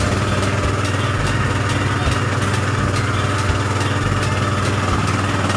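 Small engine of a motorized disinfectant fogging machine running steadily, a loud even drone with a faint regular ticking, spraying disinfectant fog.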